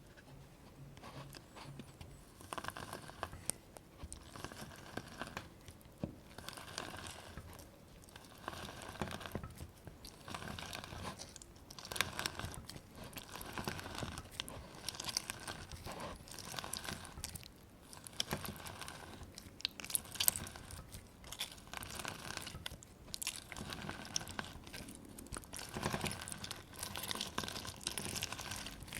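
A lemon squeezed by hand again and again, each squeeze a burst of small crackles from the peel and pulp, coming about every one to two seconds.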